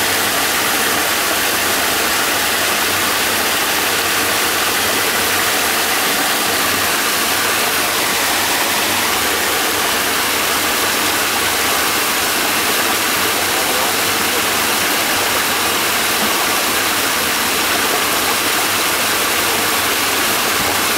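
Gold-mining trommel running: a steady rush of water spraying out of the rotating perforated drum into the sluice box, with the trommel's drive machinery running underneath.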